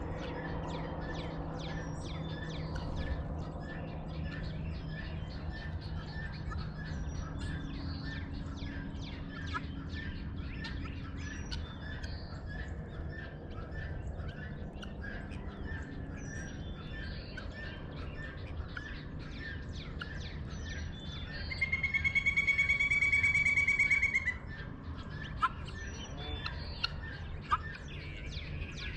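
Dawn chorus of many birds chirping and calling over a low, steady background hum. About two-thirds of the way in, a loud, harsh buzzing call with a fast even pulse lasts about three seconds.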